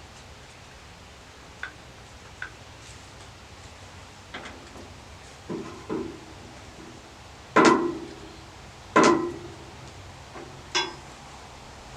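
A series of irregular knocks and clunks, some with a short ring, spaced a second or more apart; the two loudest come about a second and a half apart past the middle.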